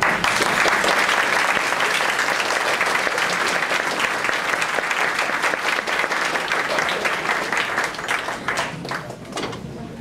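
Audience applauding, dense clapping at first that thins to scattered claps and dies down near the end.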